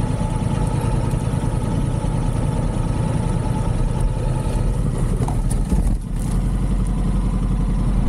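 A motorcycle engine running steadily, with a brief dip in level about six seconds in.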